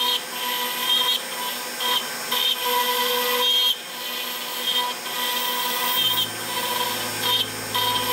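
CNC router spindle running steadily with a small bit cutting through a wooden inlay. A steady whine of several fixed pitches is overlaid by uneven swells of cutting noise as the bit moves through the wood.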